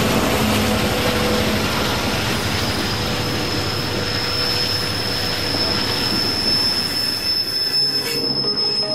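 Freight train rolling by with a steady, high-pitched wheel squeal over the rumble of the cars, the squeal of wheel flanges grinding against the rail.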